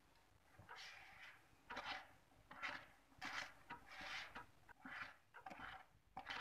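Hand wire whisk beating thick chocolate sponge-cake batter in a bowl: faint, soft swishing and scraping strokes, a little over one a second.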